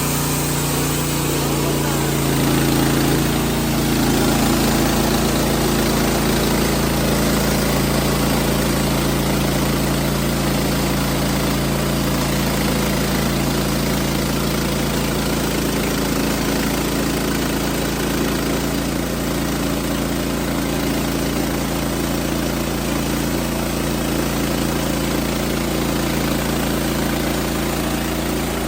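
Wood-Mizer LX55 portable sawmill running steadily under power while its band blade cuts a white oak log. The level rises slightly a few seconds in.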